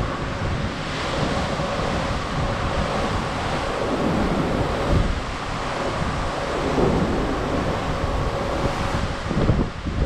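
Gusty wind buffeting the microphone over the wash of ocean swells past a moving cruise ship, with a faint steady hum underneath.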